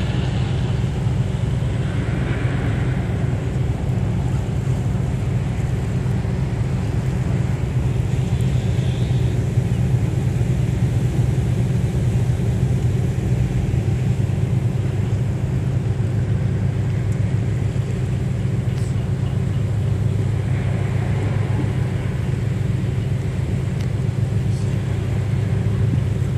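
A passenger ferry's engines running with a steady low hum, heard from aboard the moving boat, under a constant rush of wind and water.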